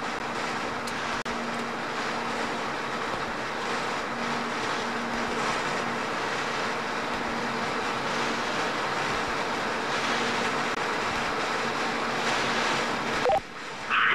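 Steady hiss with a faint low hum on the live capsule audio link, with a brief burst near the end.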